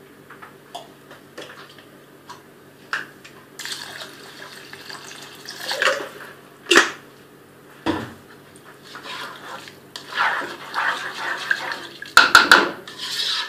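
Water being poured into a pot of soaked rice cooking on the stove, in two pours, the second starting about ten seconds in, with a few sharp knocks of a utensil or vessel against the pot. A steady low hum runs underneath.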